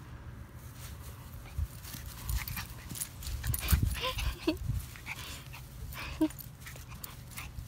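Shiba Inu puppy giving a few brief whimpers, about four seconds in and again near six seconds, among scattered clicks and rustles, over a low rumble on the microphone.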